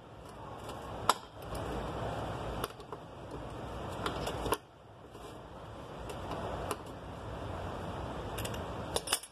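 Metal clicks and scraping as pliers grip and twist a GMC pickup starter's Bendix drive gear assembly during disassembly. Sharp clicks come every second or two over rustling handling noise.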